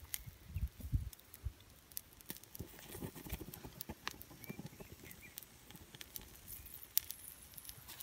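Soft knocks and rustling from handling a wooden stick spit of birds roasting over a campfire, with scattered sharp crackles from the smouldering embers.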